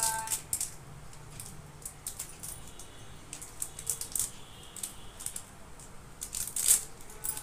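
Light, irregular clinking and jingling of glass and metal bangles on the wrists and small ornaments being handled, with a louder clink near the end.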